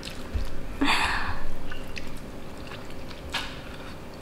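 Eating with the hands at a table: quiet mouth and food sounds, with a short hissy rush of noise about a second in and another near the end.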